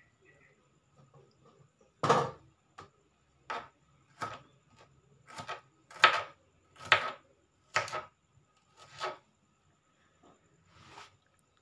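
Kitchen knife slicing shallots on a plastic cutting board: separate chops, each a sharp knock of the blade on the board, about one a second, the loudest near the middle.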